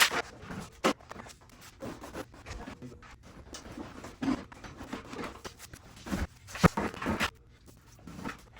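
Irregular knocks, clinks and rustles of objects being handled and moved about, with one sharper knock about two-thirds of the way through.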